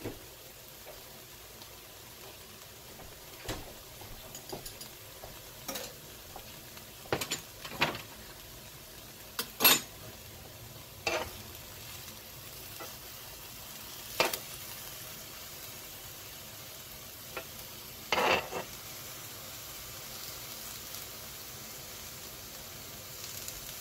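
Sauerkraut and corned beef sizzling steadily on a hot flat-top griddle, with scattered sharp clicks and scrapes; the loudest comes about ten seconds in, and metal tongs scrape across the griddle in the second half as the sauerkraut is lifted onto the sandwich.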